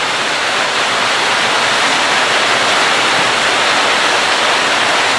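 Steady loud hiss of food sizzling and steaming in a large pot over a wood fire, with its lid off.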